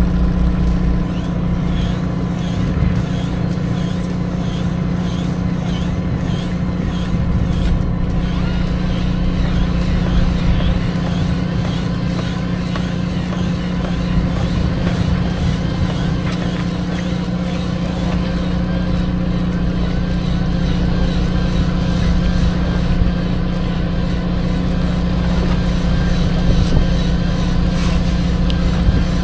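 Fishing boat's engine running steadily with an even, constant drone.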